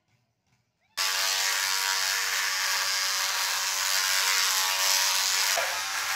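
Electric hair clipper buzzing steadily as it shaves a head close, starting abruptly about a second in.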